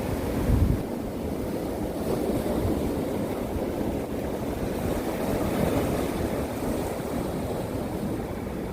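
Sea waves breaking and washing on a rocky winter shore, a steady rushing surf. Wind buffets the microphone with a low rumble in the first second.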